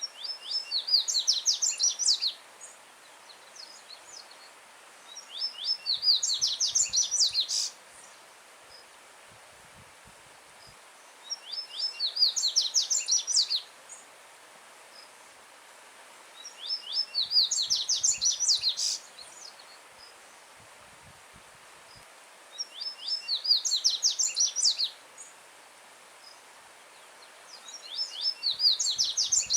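Yellow-bellied seedeater (coleiro baiano) singing loud, repeated phrases about every five or six seconds. Each phrase is a quick run of sharp, falling whistled notes lasting about two seconds. A steady hiss of running stream water sits beneath.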